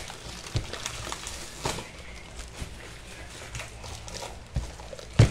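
Plastic refill pouches being handled: scattered light rustles and taps, with a sharper knock near the end.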